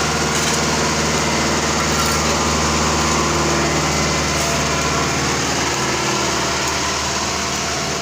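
Engine of road-construction machinery running steadily under load during asphalt laying and compaction, easing off slightly near the end.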